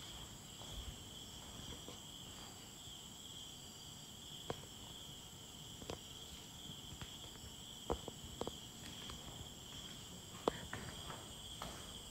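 Steady chorus of night insects chirring in an even, high band, with a few short, sharp taps and ticks scattered through it, the sharpest about ten seconds in.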